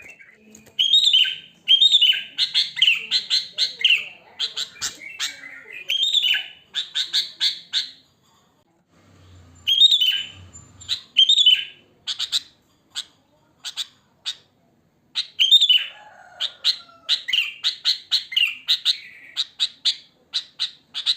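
Sooty-headed bulbul (kutilang) calling: bursts of short, bright, bubbly notes mixed with quick sharp chips, with a brief pause about eight seconds in.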